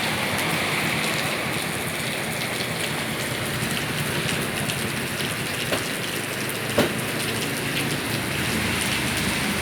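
Steady rain noise with two light clicks a second apart past the middle.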